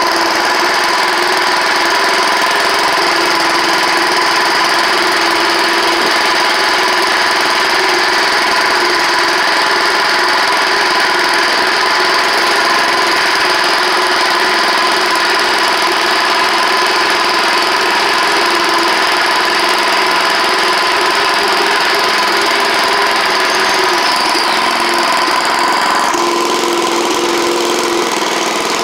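Wheel Horse garden tractor engine running steadily while the tractor is driven. About 26 seconds in, a high whine drops out and the engine note changes.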